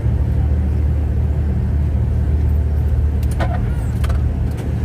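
Volkswagen Kombi engine running as the van drives along, a steady low drone, with a few short clicks or rattles about three to four seconds in.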